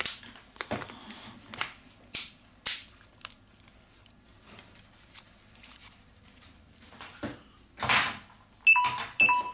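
Hands pressing around the edges of a smartphone's back cover to seat it after reassembly: scattered plastic clicks and handling rubs, with a louder rubbing scrape about eight seconds in. Two short electronic beeps come near the end.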